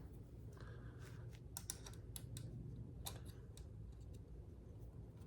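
A few light clicks of small metal airgun parts as the Daisy power plant's air tube assembly is pushed into place, mostly between about one and a half and three seconds in.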